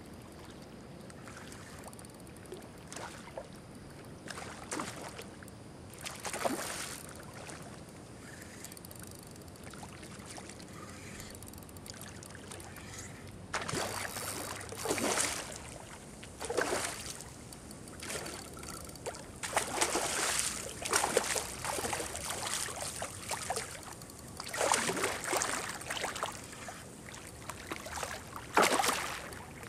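Water splashing and sloshing in irregular surges. A few light ones come at first, then louder, closer-spaced splashes from about halfway, over a steady low background hiss.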